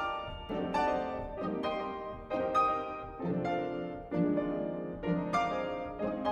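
Piano in a classical piano concerto, playing repeated chords. Each chord is struck sharply and rings down before the next, roughly one every three quarters of a second.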